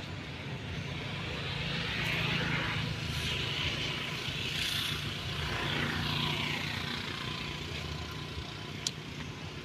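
A motor engine passing by, swelling to its loudest a few seconds in and then fading, with a low steady hum under it. A single sharp click near the end.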